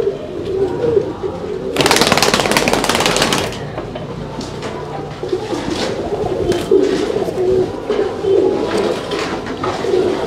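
Domestic pigeons cooing continuously, several at once. About two seconds in, a loud burst of rustling noise lasts about a second and a half.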